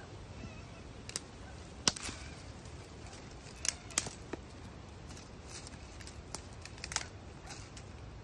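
Dry sticks snapping and cracking as firewood is gathered by hand: a scattering of short, sharp cracks, the loudest about two seconds in, with others around four and seven seconds.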